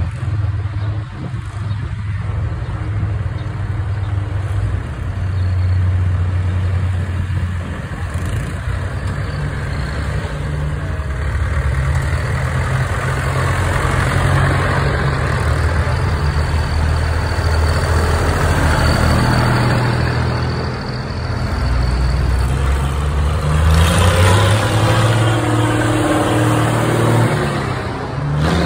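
Vintage tractor engine running as the tractor drives slowly past, a steady low drone that grows louder about halfway through as it comes near, then swells again near the end as a second old tractor approaches.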